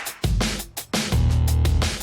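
Electronic dance music with heavy bass and sharp drum hits.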